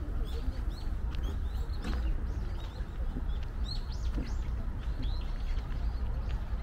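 Small birds chirping repeatedly, quick short high notes coming every fraction of a second, over a steady low rumble.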